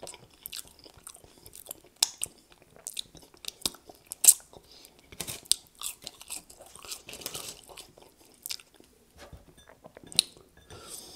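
Close-miked chewing of french fries: irregular wet mouth clicks and soft crunches.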